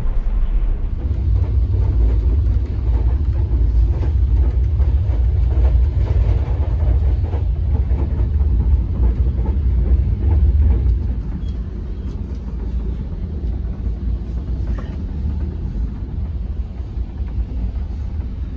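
Moving passenger train heard from inside the carriage: a steady low rumble with light scattered clicks, becoming somewhat quieter about eleven seconds in.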